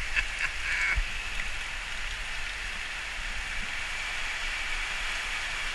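Heavy rain pouring down steadily, a dense even hiss of a tropical downpour.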